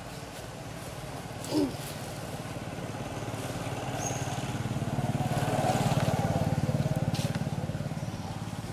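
A motor vehicle passes on the road, its pulsing engine swelling to a peak about six seconds in and fading again. A short falling squeal sounds about a second and a half in.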